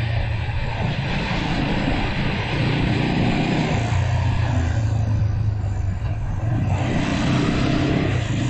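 Motorcycle riding at speed, heard from a camera mounted on the bike or rider: a steady rush of wind over the microphone with the engine's low drone underneath.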